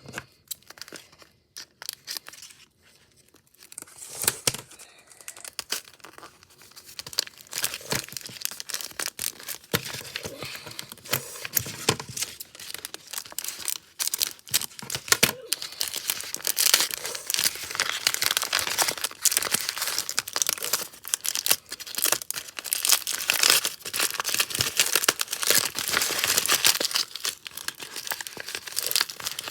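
A window blind being cleaned by hand: its slats and a cloth rustling, crinkling and scraping, with many small clicks. It is sparse and quiet for the first few seconds, then the handling grows busier and louder.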